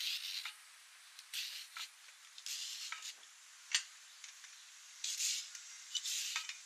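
Kitchen knife peeling and cutting cucumbers over a plate: short, thin scraping strokes of the blade on the skin about a second apart, with one sharp click near the middle.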